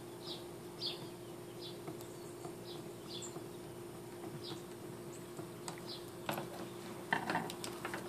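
A screwdriver tightens the screw of a compression connector on aluminum armored (MC) cable. It gives faint short squeaks about every half second over a steady low hum. Near the end come a couple of louder clatters as the tool and cable are handled.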